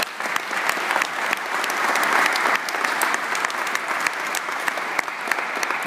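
An audience applauding: many hands clapping at once in a dense, even patter.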